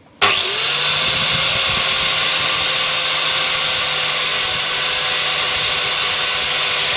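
Angle grinder switched on about a quarter second in, spinning up and then running steadily as its disc grinds the back edge of a lawnmower blade, with a loud, steady hiss of the disc on the metal.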